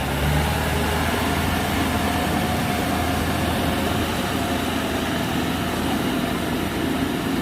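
Kubota DC70 combine harvester's diesel engine running steadily.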